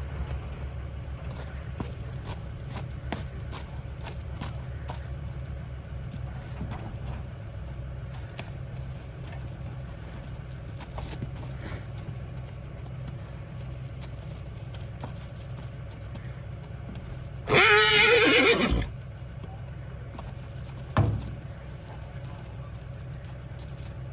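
A horse whinnies once, loudly, for a little over a second, over a steady low vehicle rumble. A short knock follows a few seconds later.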